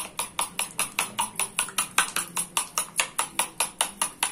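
Metal spoon beating raw eggs in a plastic bowl, clicking against the bowl in a steady rhythm of about five strokes a second.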